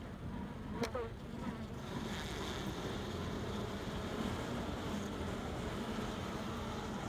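Swarm of honeybees buzzing steadily around an opened hive, agitated by the frames being pried out. A short click about a second in.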